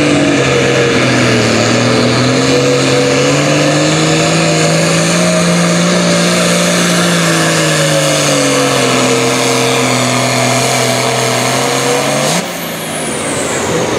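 Single-turbo diesel pulling tractor running wide open under load down the track, its engine note rising slightly and then sagging as it bogs. About twelve seconds in the throttle is cut: the engine note drops suddenly and a high turbo whistle glides down as it spools down.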